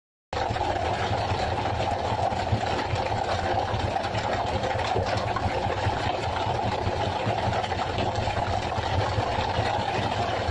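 A fishing boat's engine running steadily. It cuts in abruptly just after the start.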